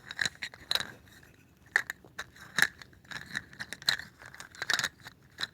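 Irregular sharp clicks close to the microphone, about a dozen over a few seconds, some coming in quick pairs.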